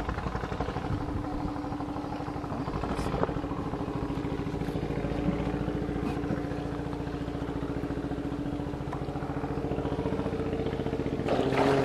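A small engine running steadily at an even pitch, growing slightly louder toward the end, with a short clatter just before the end.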